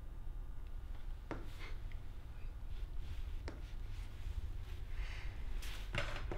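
Quiet room tone with a low hum, broken by a few light clicks and taps of a plate being handled on a kitchen countertop, with a quicker cluster of taps near the end.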